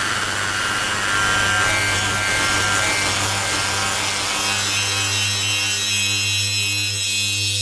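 Modular synthesizer drone from a 4ms Ensemble Oscillator through a Doepfer ring modulator: a harsh, rasping noise texture over a steady low hum. About halfway through the noise thins out, leaving a buzzing stack of steady tones.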